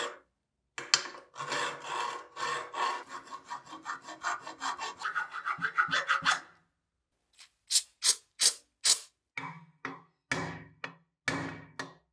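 Hand file rasping back and forth over rusty cast iron in quick, rapid strokes. After a short break about seven seconds in, the strokes come slower and separate.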